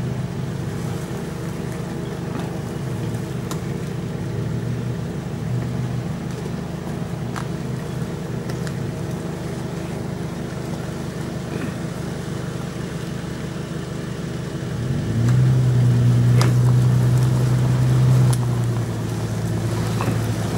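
Toyota FJ Cruiser's V6 engine running at low revs as the SUV crawls along a leaf-covered dirt trail. It revs up louder for about three seconds near the end, then eases off. A few faint clicks are heard along the way.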